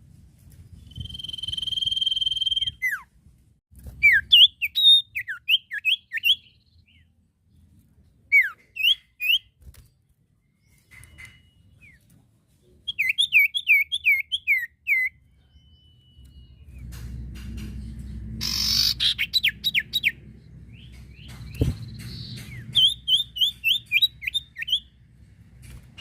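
Iora (sirtu, cipoh) singing: a steady high whistle held for about two seconds, then several bursts of quick, down-slurred chirping notes, with short gaps between the bursts. A low rumble sits underneath during the second half, and a single sharp click comes a little after the middle of that stretch.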